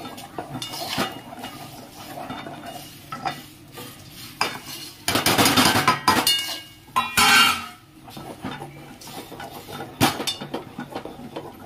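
Rice flour being stirred into boiling water in a pot to make khichu dough: a utensil scrapes and clinks against the pot. The scraping grows louder in stretches about five and about seven seconds in.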